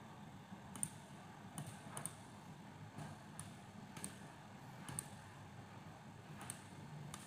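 Computer mouse clicking, about eight short, sharp clicks at uneven intervals, over a faint low hum.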